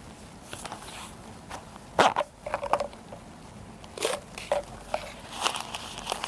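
Small parts and packaging being handled: a few sharp clicks and knocks with short rustles, the loudest about two seconds in, others near four and five and a half seconds.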